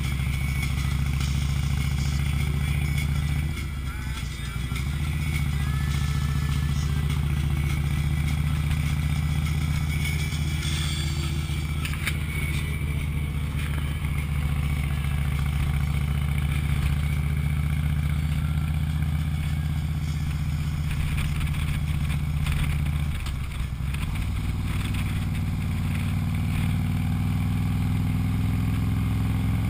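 Cruiser motorcycle engine running steadily at road speed, heard from the bike with wind and road noise. The engine note dips about four seconds in and settles at a different pitch about three-quarters of the way through.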